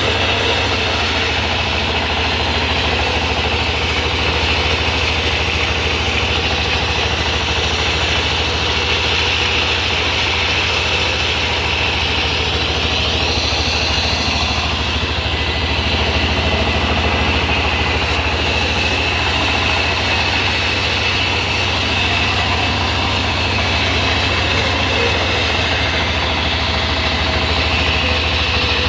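Sawmill engine running steadily at an even speed with a constant low hum, unbroken and without changes in load.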